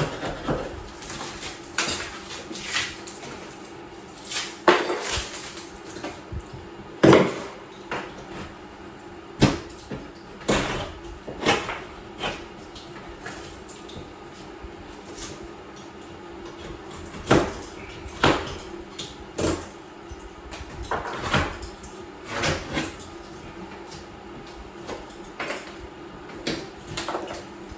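Irregular knocks and clinks of hard objects, such as tile pieces and hand tools being handled, over a faint steady hum.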